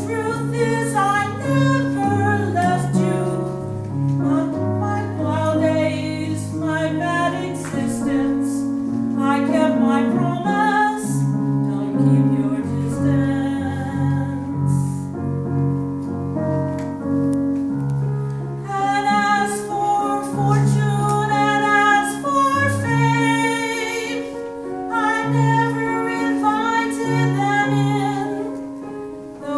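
A woman singing a song with instrumental accompaniment, with piano or keyboard among the instruments and steady low bass notes under the voice.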